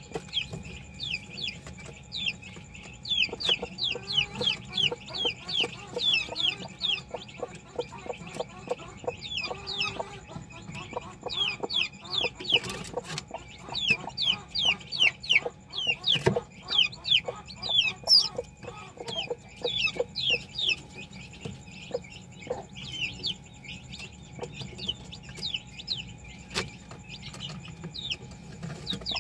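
Newly hatched chick peeping rapidly and almost without pause, each peep a short high falling whistle, while the broody hen on the eggs clucks softly and low.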